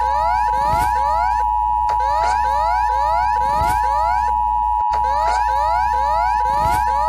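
Emergency alert alarm: a steady two-tone signal near 1 kHz under quick rising sweeps that repeat several times a second, over a constant low hum.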